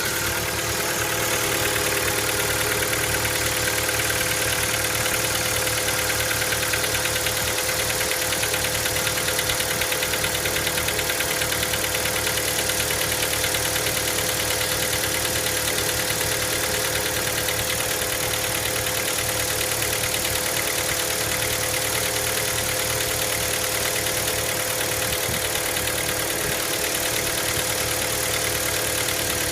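Hyundai Elantra MD's 1.6-litre four-cylinder engine idling steadily from cold with a fast, regular knocking tick over the engine note: the cold-start knock the owner is recording.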